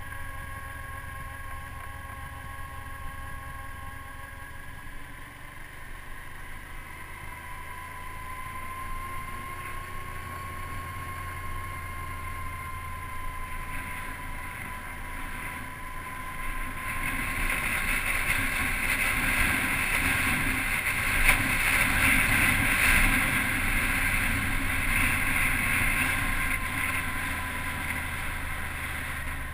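Motorcycle engine running steadily as the bike rolls downhill, with a thin whine. A rush of wind noise swells about halfway through and eases near the end.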